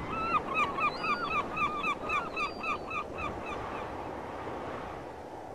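Birds calling in a rapid series of short harsh calls, about four or five a second, each dropping in pitch at the end; they thin out and stop about three and a half seconds in. A steady rush of surf runs beneath them.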